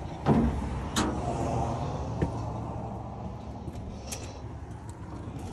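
Pickup truck engine idling with a low, steady rumble. Two sharp thumps come about a quarter second and a second in, and a lighter knock follows about two seconds in.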